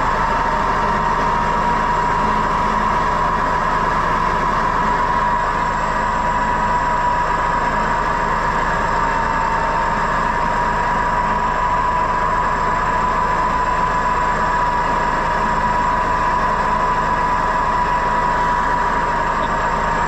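Tow truck engine running steadily, with a steady high-pitched whine over it.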